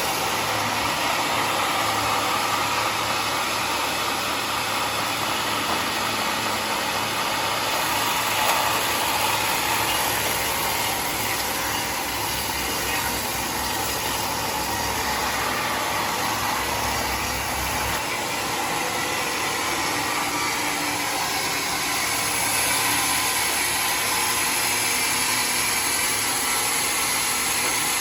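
Sawmill machinery running steadily: a constant, even mechanical noise with no pauses.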